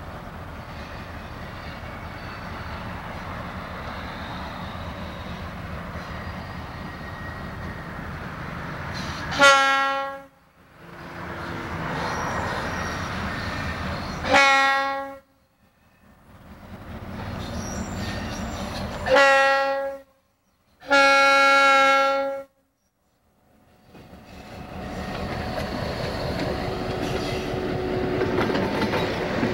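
Diesel locomotive's air horn sounding four blasts, the last the longest: the warning signal for a road grade crossing. Between and around the blasts the locomotive's engine rumbles steadily, growing louder near the end as it draws up to the crossing, and the sound drops out briefly after each blast.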